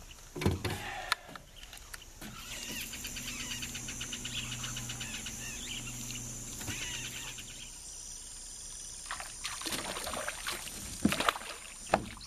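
Boat's bow-mounted electric trolling motor running with a steady hum and a fast fine ticking for about six seconds, starting about two seconds in and then stopping. A few sharp knocks near the end.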